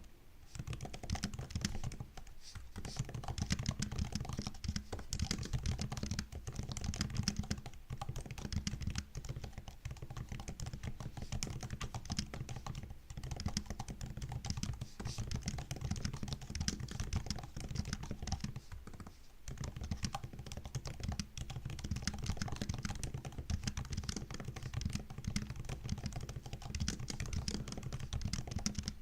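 MacBook laptop keyboard being typed on continuously: rapid, dense key clicks and taps, with a couple of brief pauses.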